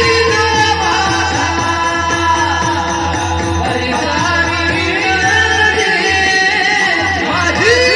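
Marathi kirtan singing: a voice sustaining long, gliding melodic phrases over instrumental accompaniment, with a steady drum rhythm underneath.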